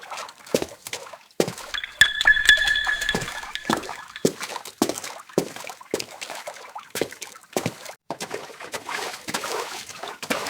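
Footsteps splashing through shallow water, more than one a second at a walking pace. A brief high ringing tone sounds over them about two seconds in.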